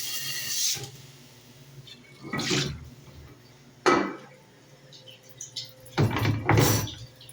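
Water spraying in a commercial kitchen dishwasher, cutting off about a second in. It is followed by three rounds of dishes and metal racks clattering and knocking, the last the longest.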